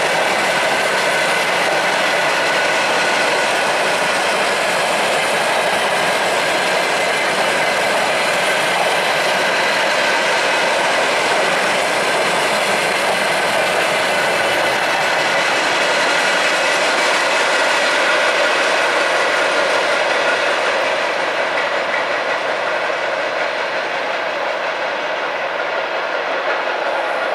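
Tank wagons of a freight train rolling past on the rails: a steady rolling noise of wheels on track, with a few faint steady high tones over it. It eases a little in the last few seconds as the train draws away.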